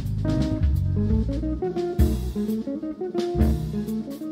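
A jazz quartet playing live: electric guitar and keyboard over electric bass and a drum kit, with sharp drum and cymbal hits through the passage.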